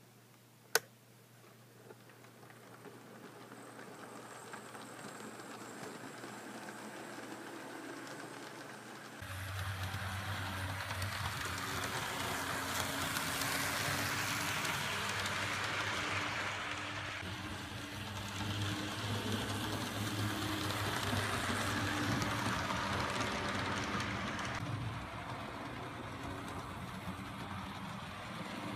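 HO scale model train running on the track: a diesel locomotive pulling boxcars, with a steady rolling noise of wheels and motor that builds over the first several seconds. It is louder from about nine seconds in and eases a little near the end. A sharp click comes just under a second in.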